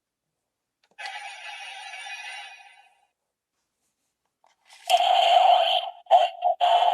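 Kamen Rider transformation belt toy playing electronic sound effects through its speaker: a quieter effect about a second in, then a louder one from about five seconds in, broken by a short gap.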